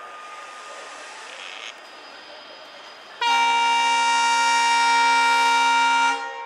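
Train locomotive horn sounding one long steady blast of about three seconds, starting about halfway in and cutting off just before the end.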